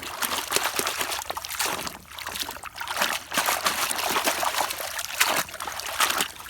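Water running and splashing over a small toy bulldozer as it is washed clean of mud, with irregular short clicks from the toy being handled.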